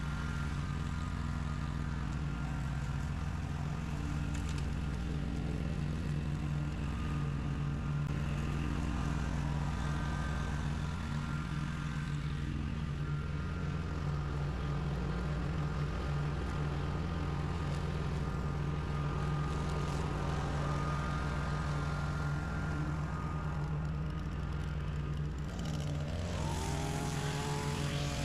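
Zero-turn riding mower's engine running steadily while cutting tall grass. About two seconds before the end, a gas string trimmer's engine comes in, its pitch rising and falling as it is throttled.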